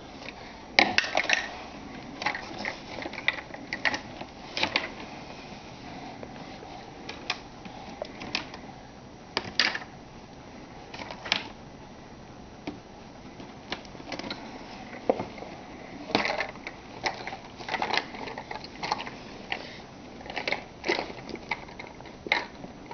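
Plastic toys clattering and knocking against each other and a plastic storage tub at irregular intervals as a toddler rummages through them.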